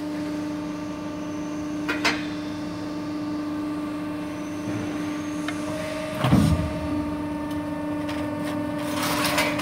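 Hydraulic gear pump of a CNC variable rake guillotine shear running with a steady hum. A pair of clicks comes about two seconds in, a heavier thump about six seconds in, and a clatter near the end as a sheared steel strip drops.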